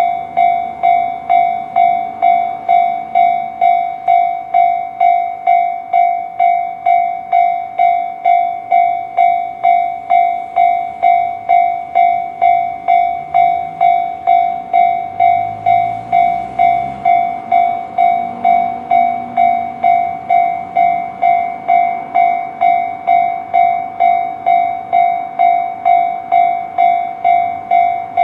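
A bell-like ringing tone struck steadily about twice a second, each strike fading quickly before the next, with no change in pace.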